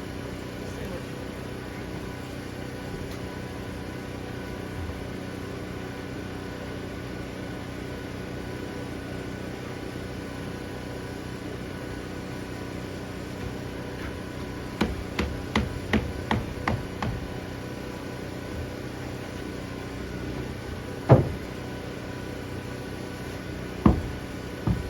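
Nailing on the cabin's roof sheathing: a quick run of about seven sharp hammer-like knocks, then two single knocks later on. A steady machine hum runs underneath.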